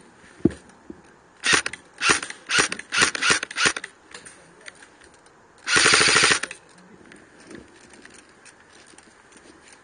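Airsoft electric rifle firing: about six short bursts in quick succession, then, about six seconds in, one longer full-auto burst of rapid shots lasting under a second. A single sharp knock comes about half a second in.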